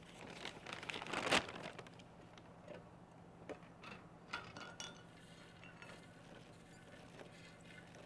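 Popped popcorn shaken in a clear plastic popcorn-popper bowl, a rustling rattle over the first second or two that settles the unpopped kernels ("old maids") to the bottom. A few light clicks and rustles follow as the bowl is handled.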